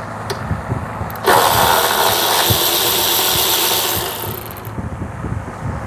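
A power tool runs in one burst of about three seconds, starting suddenly a little over a second in and tailing off, as it spins a 12 mm socket on a fuel tank mounting bolt.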